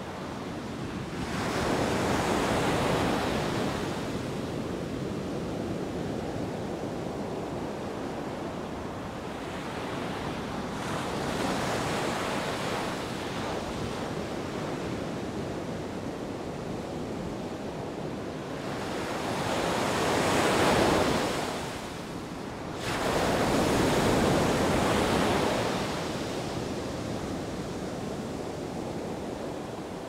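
Sea waves breaking on a beach in a continuous wash of surf. Louder breakers surge and fall away four times: once near the start, once in the middle, and twice close together after about two-thirds of the way through.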